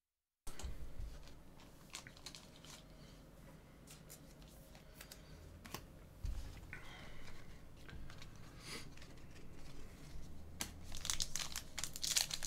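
Foil wrapper of a Panini Select trading-card pack crinkling and rustling in the hands, with scattered light clicks, starting about half a second in. The crinkling grows louder over the last couple of seconds as the pack is torn open.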